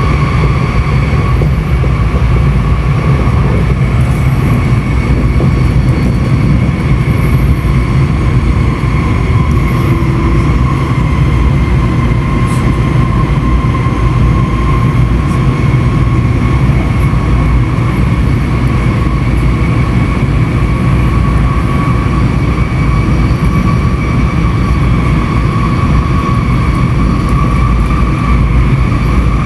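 N700S Shinkansen train running, heard from inside the carriage: a steady low rumble under a steady high whine that drifts slightly in pitch.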